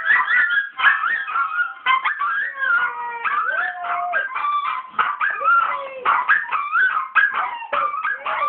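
Yorkshire terriers howling and yipping together, a tangle of high, wavering, rising and falling cries that goes on without a break.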